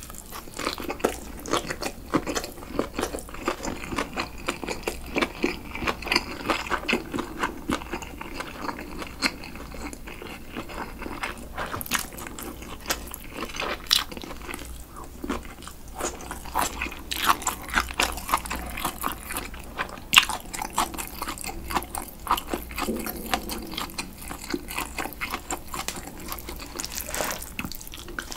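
Close-miked chewing of a mouthful of cold buckwheat noodles with grilled pork and pickled radish: wet mouth sounds with many small irregular crunches and clicks.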